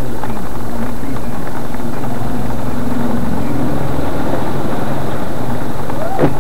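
Vehicle engines running steadily in traffic, a low hum over a constant noisy wash, with a short sharp sound near the end.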